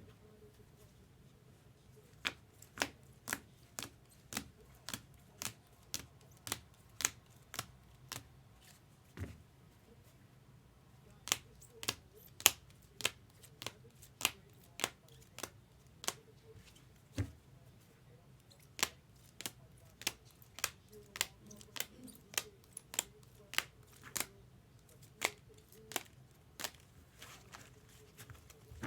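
A long irregular series of short, sharp light clicks and taps, about one or two a second, over a faint low hum.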